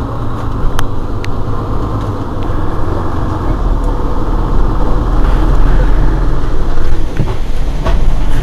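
Mercedes-Benz Citaro G C2 articulated bus running between stops, heard from inside the passenger cabin: a steady low engine drone that grows louder about halfway through. A couple of sharp clicks come about a second in.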